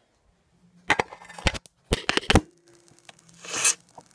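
Hard knocks and clatter of things being handled and set down: a knock about a second in, another shortly after, and a quick cluster around two seconds. A brief hiss follows near the end.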